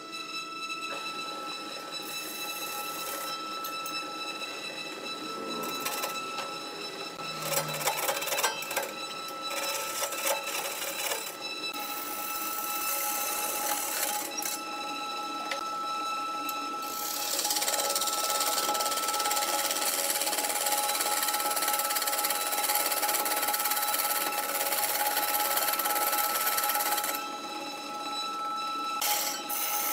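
Wood lathe running with a steady motor whine while a hand-held turning tool cuts into the spinning log. There are scattered knocks in the first half. From a little past the middle the cutting becomes a louder, even hiss, which eases briefly near the end.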